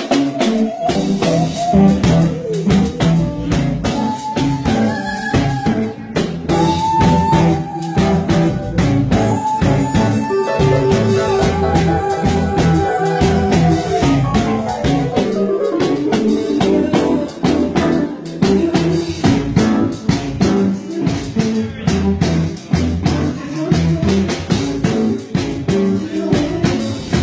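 Live band music: a woman singing into a microphone over electric guitar and drum kit, with long held notes in the vocal line between about 4 and 14 seconds in.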